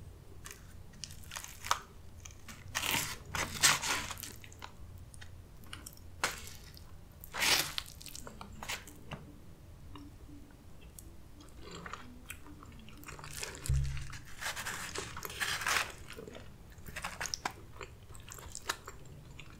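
Close-miked chewing and wet mouth sounds of a person eating saucy chicken enchiladas and Mexican rice, with scattered short crunchy clicks. One low thump comes about two-thirds of the way through.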